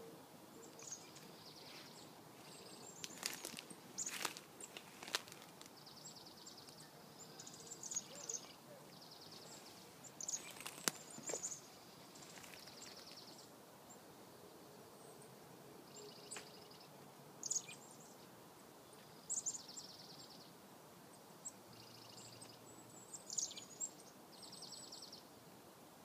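Chickadees calling repeatedly in alarm: bouts of high, short notes followed by runs of buzzy 'dee' notes. A few sharp clicks cut in, the loudest about eleven seconds in.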